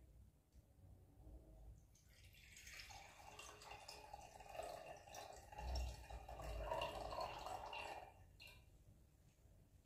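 Faint water trickling and dripping as almonds are rinsed by hand in a glass jar and the water is tipped off, starting about two seconds in, strongest a little past the middle, and dying away near the end.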